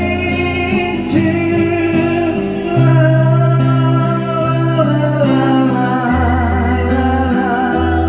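A singer holds the word "too" in a long note over band accompaniment, with guitar and a bass line changing notes underneath.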